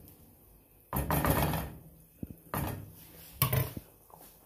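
Wooden spoon scraping and knocking against a nonstick pan of curry, three times about a second apart, the first the longest.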